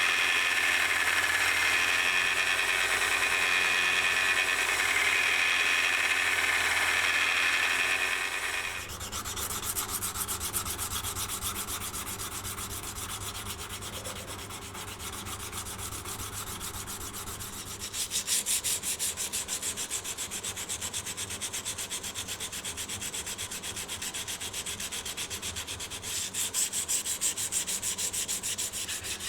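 A power tool runs steadily for about eight seconds and stops abruptly. Then come fast, regular back-and-forth rubbing strokes of hand sanding or filing in knife making, louder in two later stretches.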